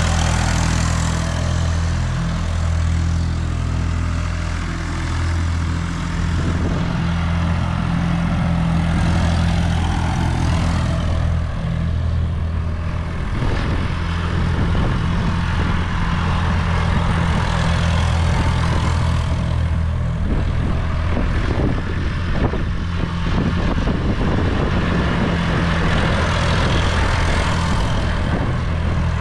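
Massey Ferguson 253 tractor's three-cylinder diesel running steadily under load as it circles pulling a box blade through loose soil. The engine note holds even throughout, growing louder and fuller as the tractor passes close at the start and again near the end.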